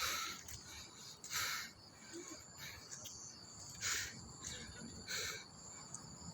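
Insects chirring steadily at a high pitch, faint, with short hissy rustles about once every second or so.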